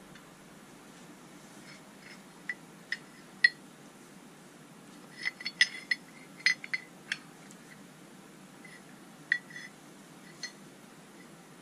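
Light metallic clinks and taps at irregular intervals, bunched in the middle, as metal parts and tools are handled and set down during work on a DIY lathe compound slide. A faint steady hum runs underneath.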